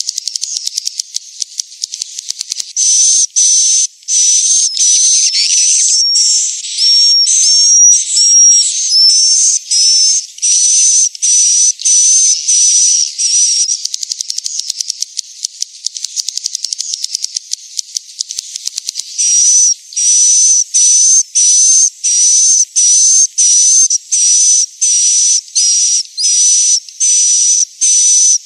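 Recorded edible-nest swiftlet calls used as a lure to call swiftlets into a nesting house: rows of short high twittering chirps, about two a second, broken near the start and again in the middle by stretches of fast dry clicking.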